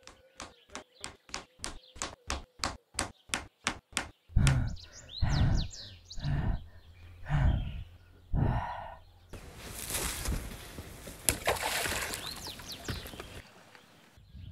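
Quick, even footfalls clacking over loose rock, about five a second, for the first four seconds. Then a boy's voice comes in several short bursts while small birds chirp, and near the end a few seconds of rushing noise cut off suddenly.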